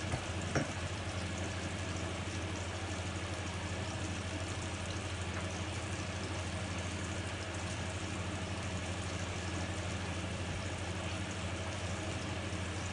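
Steady stovetop cooking noise: trout fillets frying in a pan and pots on the hob, an even hiss over a constant low hum, with one light click about half a second in.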